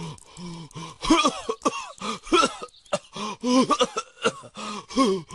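A cartoon character's voice in a rapid run of short, strained coughs and gasps, the pitch bending up and down, from dehydration.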